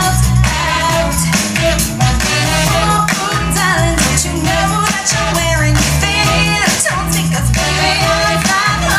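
Pop song with a sung vocal over a steady bass and drum beat, played back through Sony SS-MFP1 two-way floorstanding speakers.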